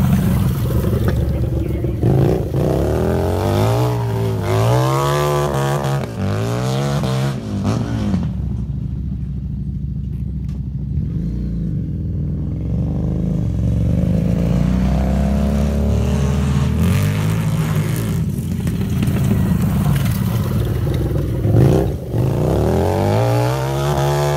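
750cc Harley-Davidson V-twin flat track motorcycles revving hard and backing off as they are ridden around a dirt oval, the engine pitch rising in repeated sweeps. The note runs lower and fainter in the middle, then climbs again near the end.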